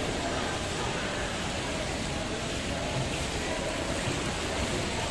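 Jacuzzi jets churning the pool water: a steady rushing of water and bubbles.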